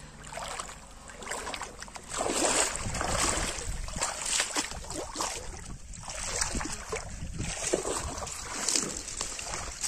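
Pond water splashing and sloshing as a person wades through shallow, weedy water, in irregular bursts that grow louder about two seconds in.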